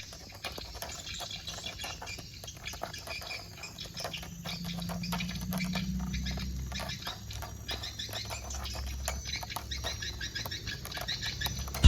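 Many short animal calls in quick succession, chirps or croaks, over a low steady hum.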